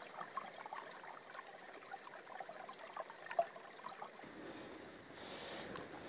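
Faint trickling of a small woodland stream running over rocks and fallen leaves, with many small gurgles. A soft, even rushing noise joins about four seconds in.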